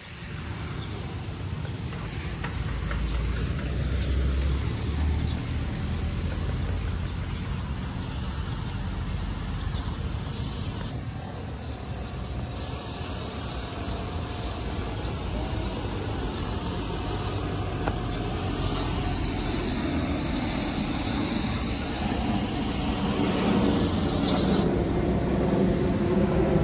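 Outdoor street ambience: steady road traffic going past with a low rumble.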